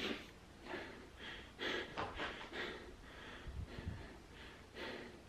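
A man breathing heavily and fast, short loud breaths in and out about twice a second, the hard breathing of someone badly frightened.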